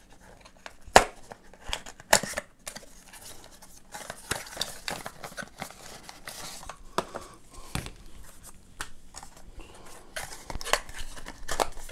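Cardboard packaging being handled: scraping and rustling as the inner tray slides in its box, with a few sharp taps, the loudest about a second in and another just after two seconds.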